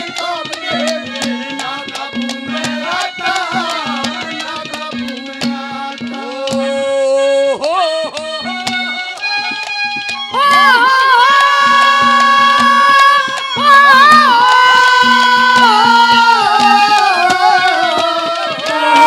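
Live Haryanvi ragni accompaniment: a hand drum playing rapid strokes over a harmonium's held notes. About ten seconds in, a boy's high, strong voice enters, singing long drawn-out notes with a wavering pitch over the drum and harmonium.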